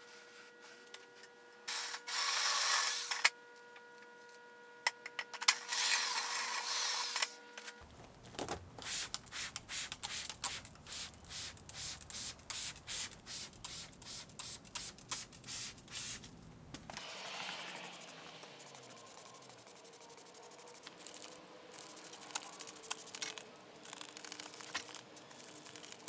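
Hand spray bottle spraying a water-diluted liquid: two long hissing sprays in the first several seconds, then a quick run of short spritzes, several a second, before the sound settles to a softer hiss.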